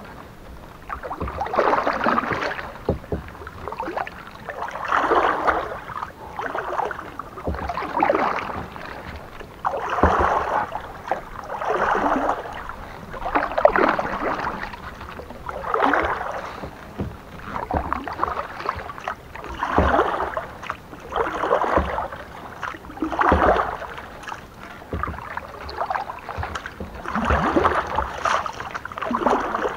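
Kayak paddle strokes in the water: a splashing swish as each blade dips and pulls, repeating in a slow, steady rhythm about every two seconds.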